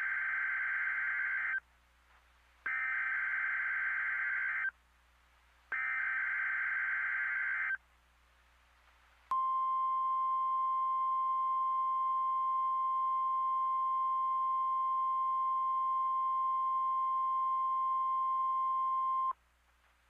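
Emergency Alert System SAME header: three bursts of buzzy digital data screech, each about two seconds long with a second's gap between them. These are followed by a single steady attention tone held for about ten seconds that cuts off abruptly.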